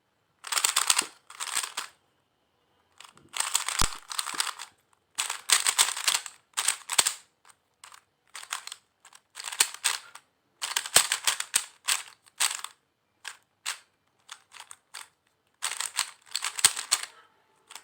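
Moyu RS3M 2021 Maglev 3x3 speed cube being turned fast in repeated bursts: quick clacking of its plastic layers. Each run lasts about a second, with short pauses between.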